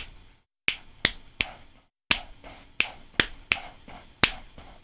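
Sharp percussive clicks in two different sounds, together playing a 3-against-2 polyrhythm at about three clicks a second, with a short break about two seconds in.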